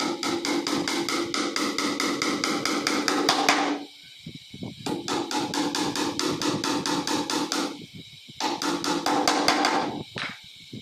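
Claw hammer driving a small nail into a laminated board tabletop with quick, light taps, about six or seven a second, each with a metallic ring. The tapping comes in three runs, breaking off briefly about four and about eight seconds in.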